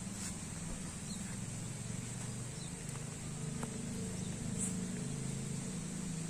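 A low, steady motor hum that shifts in pitch a few times, over a constant high-pitched insect drone, with a few faint chirps.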